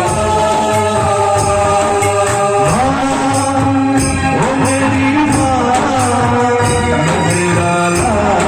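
Music: a song with a steady rattling percussion beat, tambourine-like, under a held accompaniment and a gliding melody line.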